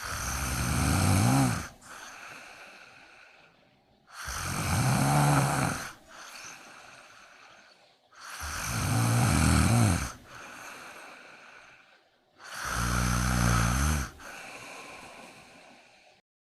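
Sleeping kitten snoring: four loud snores about four seconds apart, each followed by a softer, breathy breath.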